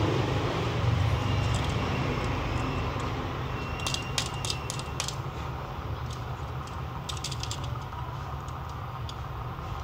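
Metal wire handles of binder clips clicking and clinking as fingers adjust the clips clamping acrylic sheets together. There are two short runs of light clicks, about four and seven seconds in, over a steady low hum.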